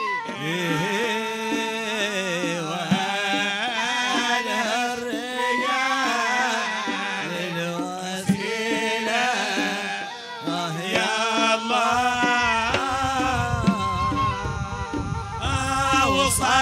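Hadrami zarbadi song: a male singer holding a long, ornamented melody with the band's drums. The low drumming fills out from about twelve seconds in.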